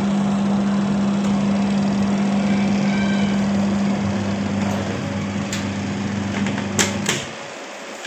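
Spin motor of a semi-automatic washing machine running on a newly fitted spin timer, a steady electric hum that cuts off about seven seconds in, with a couple of sharp knocks just before it stops.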